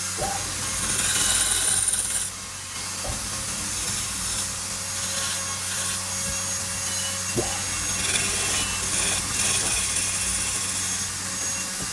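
Wood being worked on a running lathe: a steady motor hum under a scraping, rasping hiss as a tool or abrasive rubs the turning wood. Two brief knocks come about three seconds and seven seconds in.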